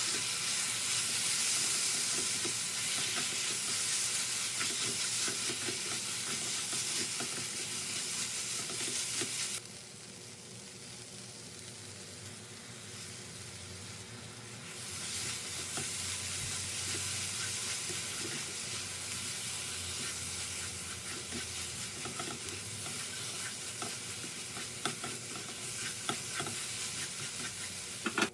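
Fish cakes and vegetables sizzling in hot oil in a frying pan as they are stir-fried, with small clicks and scrapes of the utensil against the pan. The sizzle turns quieter for about five seconds near the middle, then picks up again.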